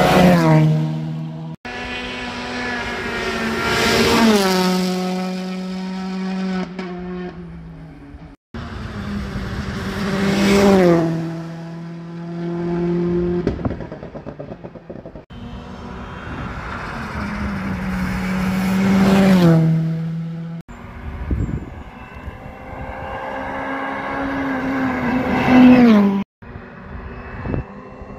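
Rally cars passing one after another at speed. Each car's engine grows louder as it nears and its note drops in pitch as it goes by. The sound cuts off suddenly several times between passes.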